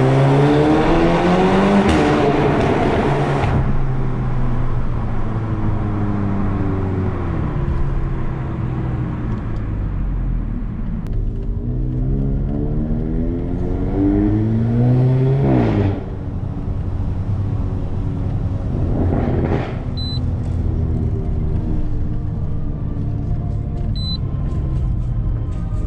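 Volkswagen Golf GTI TCR's turbocharged 2.0-litre four-cylinder, fitted with a Milltek 3-inch downpipe and no particulate filter, pulling through the gears. The engine note rises near the start and again about twelve seconds in; the second pull cuts off sharply at about sixteen seconds, and a short rush follows a few seconds later.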